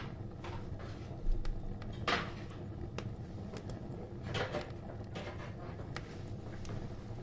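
Spoon stirring thick gram-flour batter with chopped vegetables in a bowl: irregular wet scraping strokes against the bowl, over a steady low hum.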